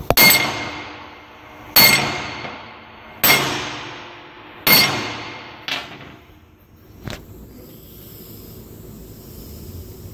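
Ball peen hammer striking a sample panel of tank lining material in an impact test: four heavy blows about a second and a half apart, each ringing out and fading. A lighter knock and a short click follow a second or two later.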